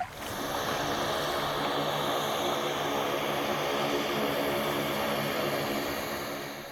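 Propeller aircraft engine droning steadily, fading away near the end.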